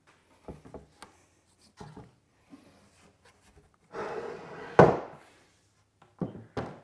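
A live-edge slab waterfall table being handled and turned over on a workbench: a few light wooden knocks, then about a second of rushing noise ending in one loud thump about five seconds in as the table is set down on its legs.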